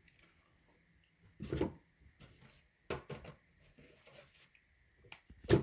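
A few light knocks and clatters of plastic model-kit pieces and box parts being handled and set down, the loudest knock near the end.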